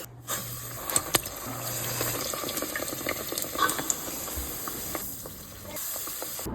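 Dough frying in hot oil: a steady sizzle with many small crackles and pops.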